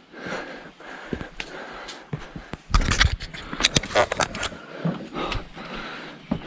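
Irregular scuffs, scrapes and knocks of someone climbing, with a busy run of sharp clicks about three to four and a half seconds in.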